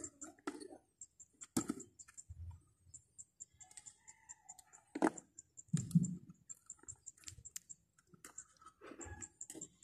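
Clicks and light knocks of a Shimano Sienna 2500FD spinning reel's metal parts being handled and turned over in the hands, the loudest a sharp click about five seconds in followed by a duller knock. A fast, faint, high-pitched ticking runs underneath.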